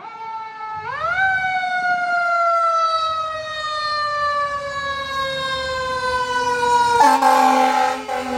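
Fire engine siren wailing: its pitch rises quickly about a second in, then slides slowly down. Near the end a loud horn blast sounds over the siren, with the truck's engine rumbling underneath.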